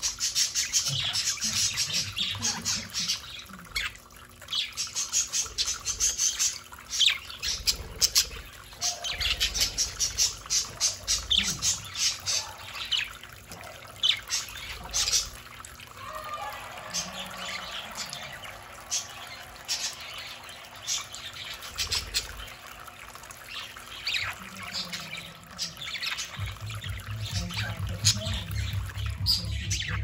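A small flock of budgerigars chirping and chattering continuously in rapid, high calls, with water splashing and trickling as they bathe in a small running fountain.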